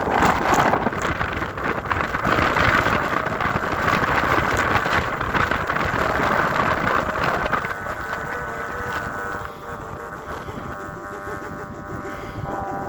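Thai kite hummer (snu) droning loudly in a strong gale, heavily buffeted by wind on the microphone; about two-thirds of the way in the wind noise eases and the hummer's steady pitched hum, with several overtones, comes through clearly.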